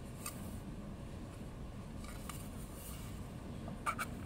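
Quiet room tone with a few faint clicks and taps as a clear acrylic eyelash box is handled and turned over in the hands, the last one slightly stronger near the end.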